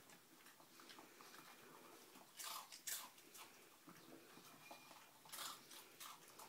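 A dog crunching and chewing dry food pellets from a bowl: faint chewing throughout, with a few sharper crunches about halfway and again near the end.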